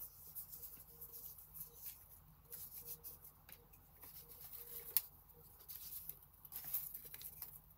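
Faint rustling of paper scraps being picked through and lifted by hand, with scattered light ticks and one sharper click about five seconds in.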